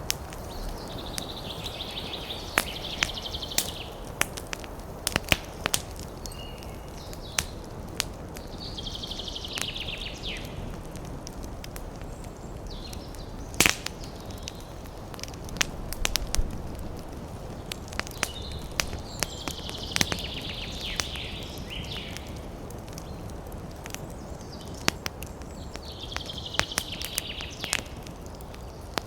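Campfire of burning wood crackling, with frequent sharp pops over a steady low rush of flame and one louder pop about halfway through. A bird's high trill comes in four times, each lasting a second or two.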